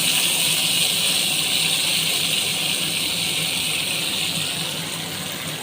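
Fresh fenugreek (methi) leaves sizzling in hot oil in a kadai, a steady hiss that slowly eases off.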